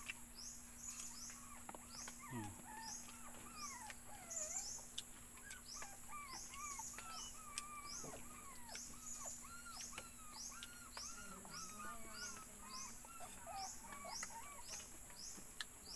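Wild birds calling outdoors: a short high chirp repeated about twice a second over a varied warbling call, with a steady high-pitched insect drone underneath.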